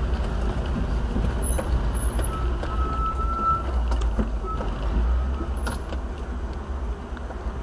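A vehicle driving over rough ground: a steady low rumble with scattered knocks and rattles, and a thin high squeak a couple of seconds in.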